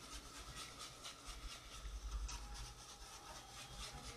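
Wire whisk stirring chili gravy in a saucepan: a faint, rhythmic swishing scrape of about three strokes a second.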